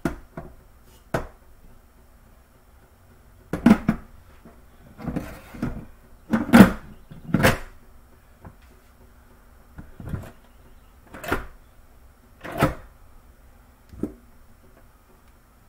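Kitchen handling sounds: a dozen or so separate knocks and clunks of things being moved and set down at the counter and sink, loudest a little past the middle.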